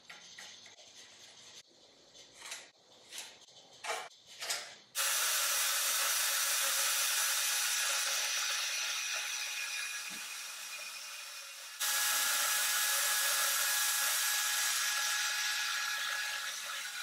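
A scribe scraping a few short strokes on a steel bar, then a DeWalt portable band saw starting suddenly about five seconds in and cutting through the steel bar held in a vise, a loud, steady, high cutting noise. The cutting noise eases a little, then jumps back to full strength shortly before twelve seconds.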